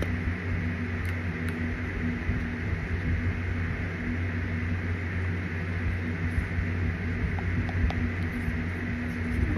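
A steady mechanical hum and hiss, like a running appliance or fan, with a few faint clicks.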